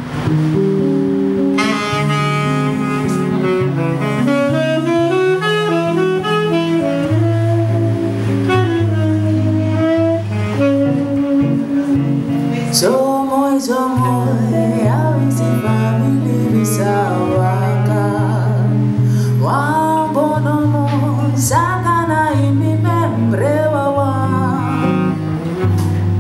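Live band music: a tenor saxophone plays a melody over an electric bass line, and about halfway through a woman's voice takes over the melody, singing over the bass.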